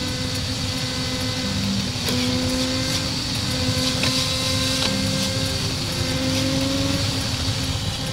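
A motor vehicle's engine running with a steady hum over road rumble, its pitch creeping slowly upward as it gathers speed, with a small step in pitch about two seconds in.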